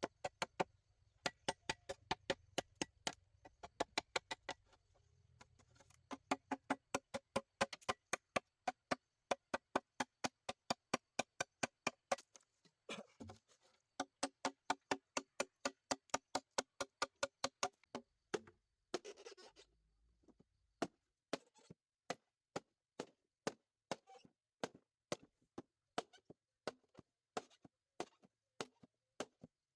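A hand tool striking over and over, about three sharp knocks a second for the first half and slower, more spaced-out strikes later, each with a short ring, in runs broken by brief pauses.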